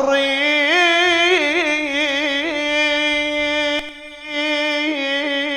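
A male radood's voice sings one long held note of a Shia elegy (latmiya) with wavering melismatic ornaments. The voice dips briefly for a breath about four seconds in, then carries on.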